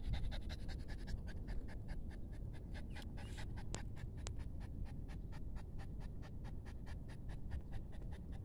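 French bulldog panting fast and evenly, about five breaths a second, mouth open and tongue out.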